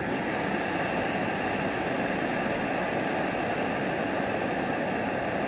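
Iwatani Junior Compact cassette-gas camping burner running with a steady, even hiss under a stainless steel pot.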